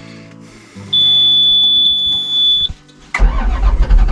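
A loud, high-pitched electronic beep held steady for about two seconds, then about three seconds in a vehicle engine starts and runs loudly.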